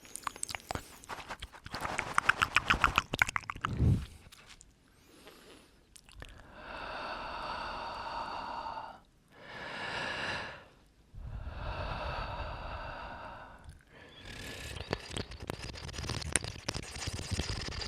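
Close-up mouth sounds: wet clicks and smacks for about the first four seconds, then three long breaths blown onto the microphone, then more crackly mouth clicks near the end.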